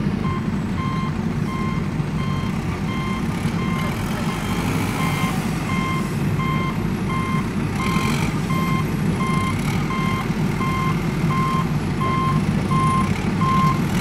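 Truck reversing alarm beeping steadily about twice a second over the continuous low rumble of a running engine.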